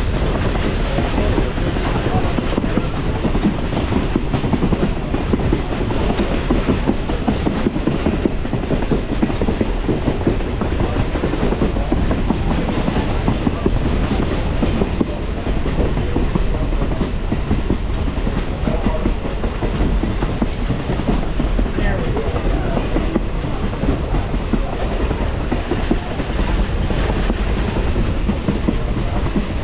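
Passenger train rolling along the track, heard from aboard: a steady rumble of wheels on rail with the clickety-clack of rail joints.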